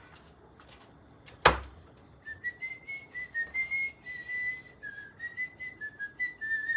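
A person whistling a wavering tune, starting about two seconds in, over light clicks and clinks of dishes. One sharp knock about a second and a half in is the loudest sound.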